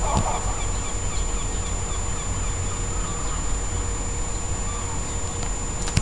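Gulls calling: one short call right at the start, then fainter scattered calls, over a steady low rumble.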